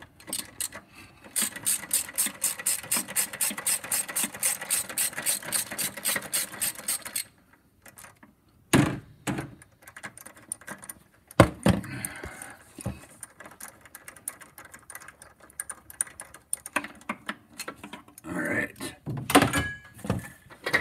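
Ratchet clicking steadily, about six clicks a second, as a bolt on a 2000 Ford F-150's alternator is backed out; the clicking stops after about seven seconds. Scattered knocks and clunks of metal follow as the alternator is handled.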